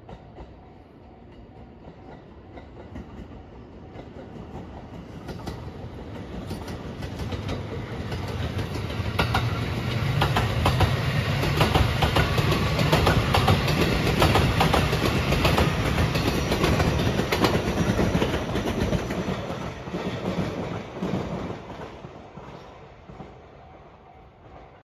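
Rapid Marine Liner electric train approaching, passing close by and moving away. Its wheels clack sharply over the rail joints as it goes past, and the sound swells to a peak in the middle and then fades.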